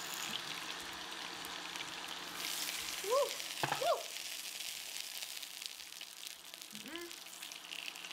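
Food sizzling on the hot grill plate of an electric hot pot and grill, a steady frying hiss. A few short hums of a person's voice break in, about three and four seconds in and again near seven seconds.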